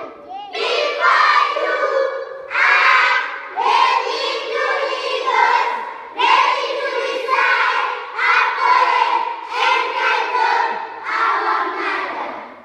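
A group of children singing together in unison, in loud phrases about a second long with short breaks between them.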